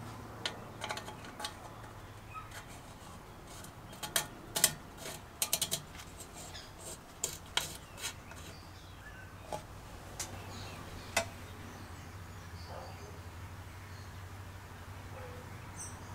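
Metal filler cap of a Dietz kerosene lantern being fitted and screwed onto the fuel fount: sharp little metallic clicks and scrapes, thickest about four to six seconds in and scattered after.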